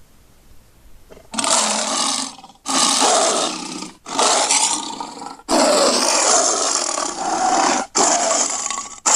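Custom dinosaur roar sound effects: after a quiet second, a string of about six loud roars, each starting abruptly and lasting one to two and a half seconds, with brief gaps between them.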